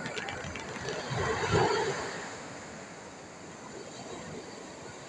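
Mediterranean sea waves on a beach: one wave breaks and rushes in with a swell of noise about a second and a half in, then settles to a steady, quieter wash of surf.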